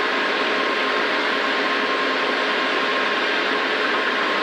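Rally car engine held at steady high revs at full throttle, mixed with heavy wind and road noise, heard from inside the cockpit. The pitch stays level, with no gear change.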